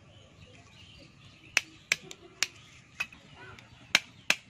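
A series of sharp, dry clicks, six of them at irregular intervals starting about one and a half seconds in.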